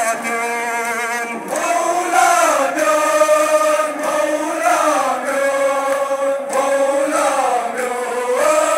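A Kashmiri noha, a Muharram lament, chanted in long held notes that bend and waver.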